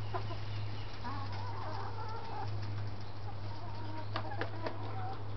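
Domestic hens clucking, in a run about a second in and again near the end, with a few sharp clicks around four seconds in and a steady low hum underneath.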